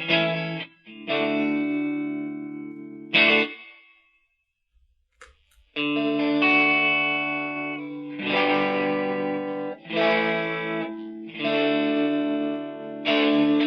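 Electric guitar played through a BOSS Blues Driver BD-2 overdrive pedal: overdriven chords struck and left to ring, with a pause of under two seconds about four seconds in.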